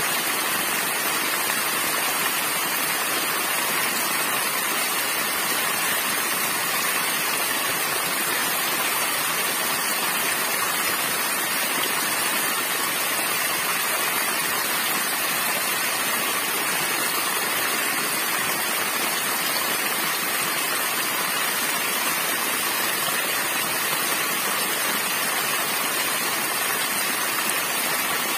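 Small waterfall splashing down a rock face into shallow water below: a steady rush of falling water that stays even throughout.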